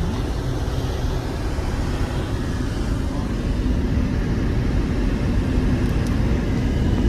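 Steady rumble of a car driving along a road, heard from inside the cabin: engine and road noise.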